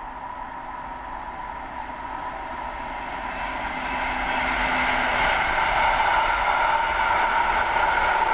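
A long container freight train hauled by an electric locomotive approaching and passing, its wheels running on the rails growing steadily louder for about six seconds and then holding steady as the container wagons roll by. A faint hum from the locomotive stops about five seconds in.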